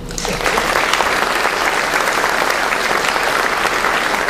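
Audience applauding in a large hall. It starts suddenly and goes on steadily as a dense patter of many hands clapping.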